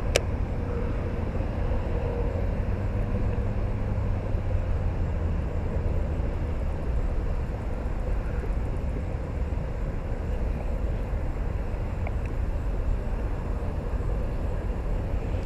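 A steady low outdoor rumble with no distinct events, its energy mostly in the lowest pitches and wavering quickly.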